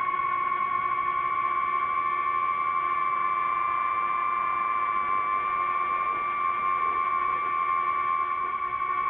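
DJI FPV drone's electric motors and propellers whining at a steady high pitch in flight, wavering slightly in pitch around the middle.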